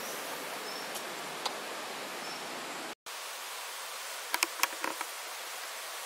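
Steady outdoor hiss that cuts out for an instant about halfway through, followed by a quick run of sharp clicks about a second later.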